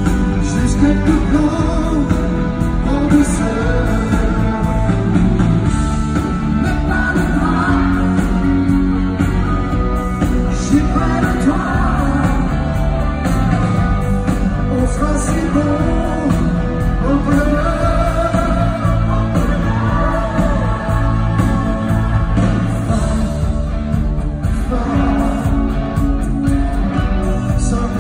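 Live pop concert: a male singer singing into a microphone over an amplified band, heard from among the audience in a large hall.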